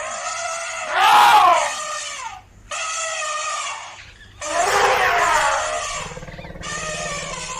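Elephant trumpeting: a run of loud, high calls one after another with short gaps between them, two of them louder and bending in pitch.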